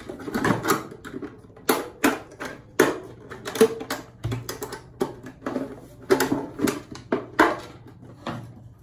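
Cut plastic bottle being handled and fitted by hand: irregular plastic clicks and crackles.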